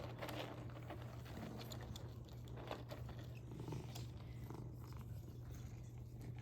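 Domestic cat purring steadily, with small scattered clicks from eating treats.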